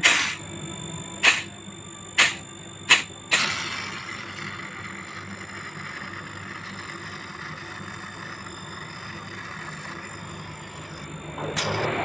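Refrigerator compressor's open pipe stub spitting gas and oil: five short, sharp hisses in the first few seconds, the last one trailing into a faint steady hiss. Oil trapped inside the compressor is being heard.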